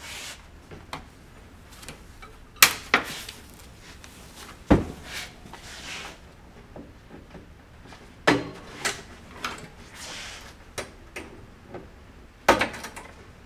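Irregular sharp clicks and snaps, with scraping and rustling between them, as the plastic wire ties holding wiring harnesses to a Dometic RV refrigerator cooling unit are cut and the harness is worked loose along the metal cabinet.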